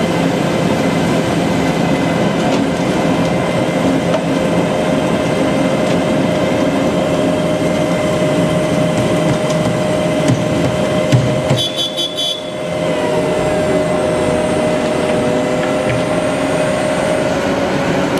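Wirtgen W220 cold milling machine running as it mills off an asphalt layer: a loud, steady mechanical din with a steady whine. About twelve seconds in there is a quick run of high beeps.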